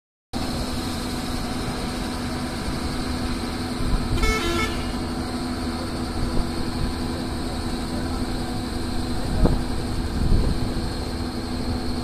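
Doosan crawler excavator's diesel engine running steadily while the operator works the bucket. A vehicle horn sounds once, briefly, about four seconds in, and a couple of dull thuds come near the end.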